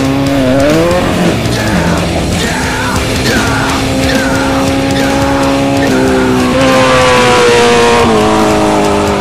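Off-road race vehicle engines running under a rock music soundtrack, with sustained pitched tones and a few sliding glides in pitch.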